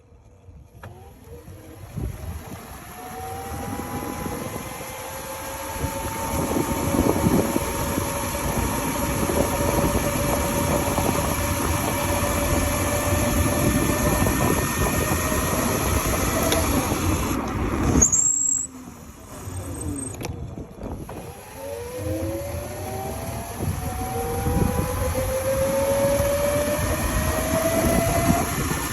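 Electric motor of a modified Razor RSF650 mini moto whining as it accelerates, the pitch rising and then levelling off, over a steady rushing noise. About two-thirds through the sound drops out briefly, then the whine rises again.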